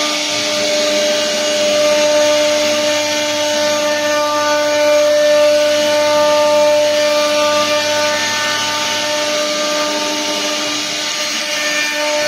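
CNC machine spindle running under cut, a steady whine over an even cutting hiss.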